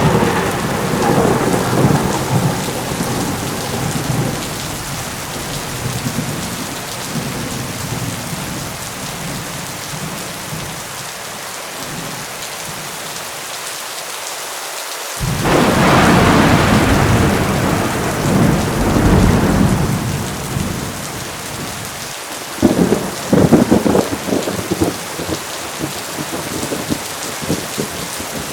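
Heavy rain falling steadily with thunder. A rumble at the start fades over several seconds. A second peal breaks in suddenly about halfway through and rolls for several seconds, and a burst of sharp cracks follows a few seconds later.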